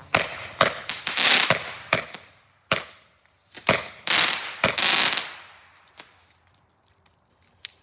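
Fireworks going off inside a plastic toy washing machine: a run of sharp bangs over about five seconds, with two longer crackling, hissing bursts, then only a few faint ticks near the end.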